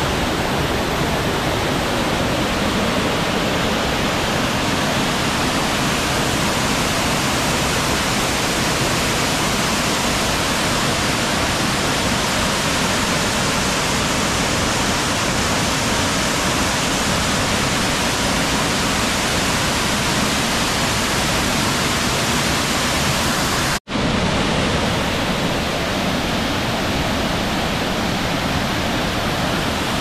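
Waterfall with a heavy flow pouring about 20 metres into a rock pool, heard close to the plunge: a steady, loud rushing roar of falling water. It breaks off for an instant about 24 seconds in.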